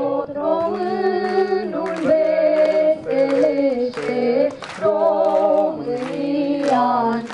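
A group of voices singing a song together, in long held notes with a slight waver, broken into phrases.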